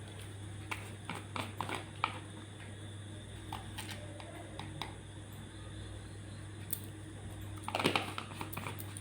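Scattered light clicks and taps of a spoon against a container while baking soda is spooned out, with a denser run of taps near the end over a steady low hum.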